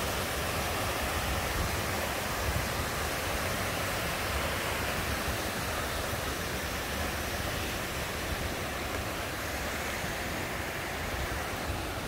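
Steady rushing of the Triberg waterfalls' stream cascading over rocks.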